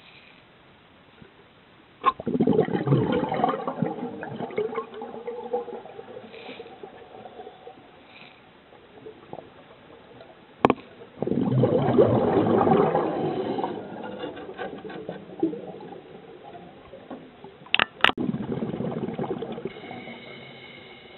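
Scuba diver's regulator exhaling bubbles: three bubbling surges a few seconds long, about eight seconds apart, each fading out, with a sharp click just before the second and third.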